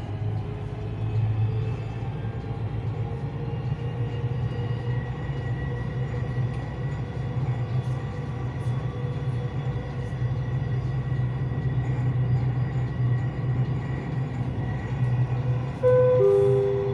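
Dubai Metro train running on its elevated track, a steady low rumble heard inside the carriage. Near the end, a two-note chime falling in pitch sounds over the train's speakers.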